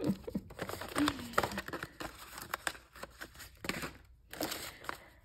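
Crinkling and rustling of cellophane sleeves and paper packing being handled in a cardboard box, with many small clicks and taps, stopping briefly about four seconds in.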